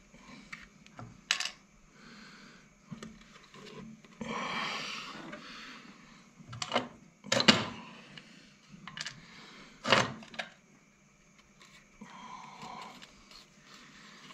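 Metal gearbox parts clinking and knocking as they are handled during a gearbox repair: a few sharp metallic clicks and knocks, and a short rattling scrape about four seconds in.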